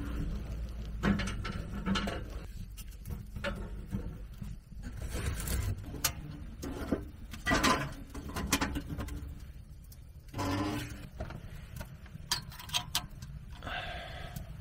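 Kindling crackling as it catches in a small wood-burning stove, with scattered sharp clicks and metal knocks as the stove door rail and top fittings are handled. A steady low hum runs underneath.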